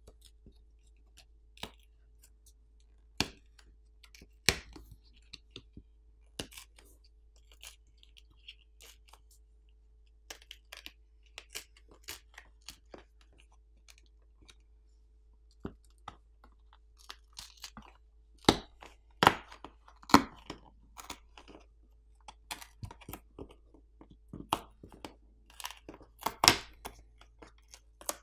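A plastic pry pick working between a smartphone's thin plastic back plate and its frame, with irregular clicks, crackles and scrapes as the heated adhesive underneath gives way. The crackles come in louder clusters about two-thirds of the way through and again near the end.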